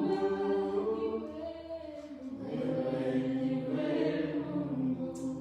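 A church praise team singing together, voices holding long notes.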